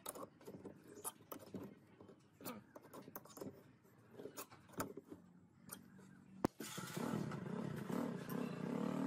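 Small scattered clicks and scrapes as a steel screw eye is twisted into a pine board. About six and a half seconds in there is a sharp click, and a louder, steady, dense background sound takes over.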